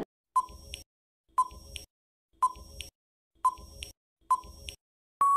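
Quiz countdown-timer sound effect: five short beeps about a second apart as the seconds tick down, then a longer steady beep near the end as time runs out.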